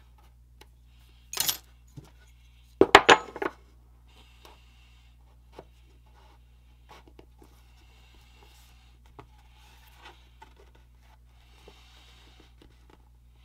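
Steel hand tools handled on a wooden workbench: a short metallic clank about a second and a half in, then a louder clatter of several quick knocks as a small steel block is set down against the work. Faint rubbing and handling sounds follow.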